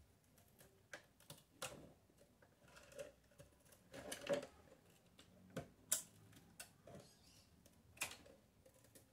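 Scissors snipping slowly through the thin plastic of a fabric-softener bottle: a string of faint, irregular snips and clicks.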